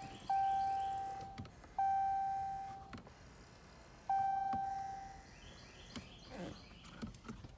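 2015 Chrysler 200's dashboard warning chime sounding three times, each a single clear ding at the same pitch that fades away over about a second.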